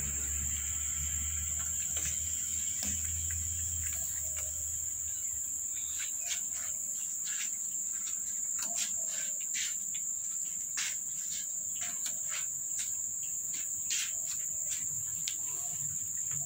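Steady high-pitched chirring of insects throughout. From about six seconds in, irregular sharp crunching clicks, one or two a second, as cats chew chicken bones.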